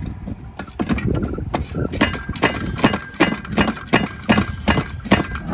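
Mercruiser Alpha sterndrive being rocked back and forth by hand to work it off the transom studs, giving a run of sharp metallic knocks at about three a second that grow stronger about two seconds in.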